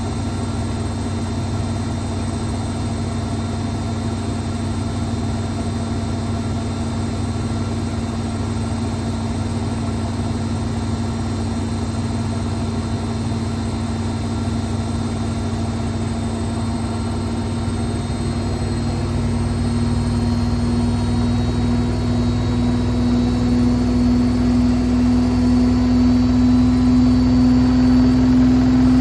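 Hotpoint WML540 Aquarius washing machine in its final spin with the door open: a steady motor whine and drum hum that rise in pitch and get louder from about two-thirds through as the spin speeds up.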